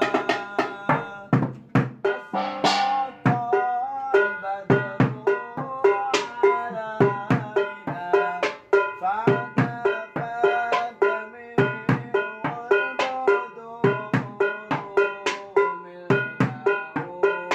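Instrumental interlude of sholawat music: a drum beat of quick, regular strikes under a plucked-sounding melody line, with no singing.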